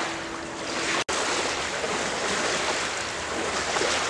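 Small river waves lapping and washing onto a sandy shore, with wind on the microphone. The sound cuts out for an instant about a second in.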